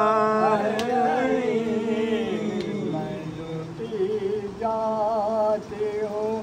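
Noha, a Shia Muharram lament, chanted in long held, wavering notes. The chant thins out near the middle and comes back strongly about four and a half seconds in.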